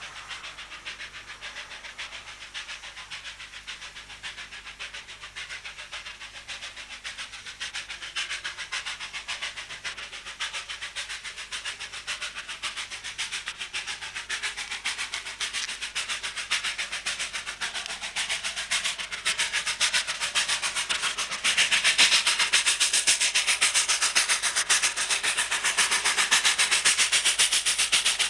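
South African Railways class 25NC 4-8-4 steam locomotive working hard up a steep grade with a heavy train, its exhaust beats coming in a rapid, steady stream with hissing steam. The sound grows steadily louder, stepping up sharply about three-quarters of the way through.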